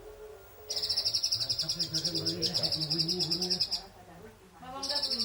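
Pleci (white-eye) singing a rapid, high trill in two bouts: the first starts about a second in and lasts about three seconds, the second begins near the end.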